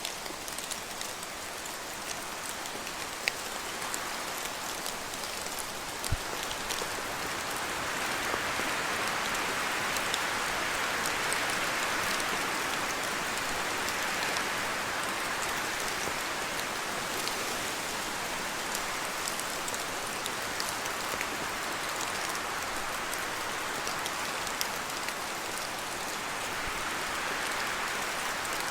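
Steady rain falling through spruce forest, with scattered sharp ticks of single drops dripping from the trees. The hiss swells louder for several seconds about a third of the way in, and again near the end, as wind gusts through the spruce boughs.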